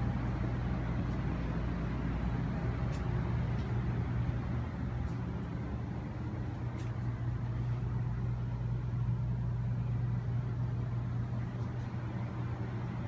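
Motorhome air conditioning running with a steady low hum and a soft rush of air. A few faint clicks sound over it.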